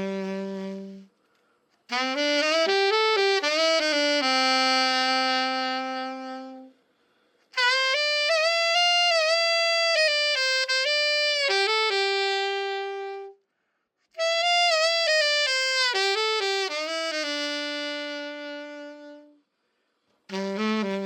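Yanagisawa Prima A-50 alto saxophone played solo after its full overhaul: three short melodic phrases, each ending on a long held note, with brief pauses between them.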